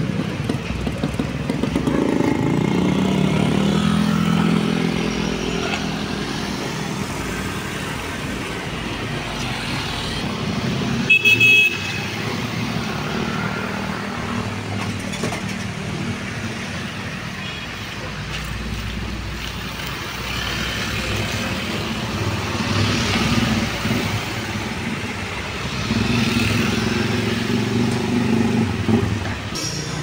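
Street traffic with a vehicle engine running close by, its pitch swelling a few times as it pulls away. A brief horn toot sounds about eleven seconds in.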